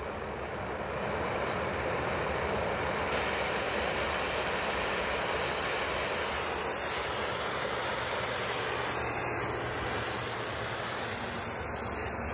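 Oxy-fuel torch flame hissing steadily as it heats metal gas tubes, growing louder over the first few seconds and then holding steady.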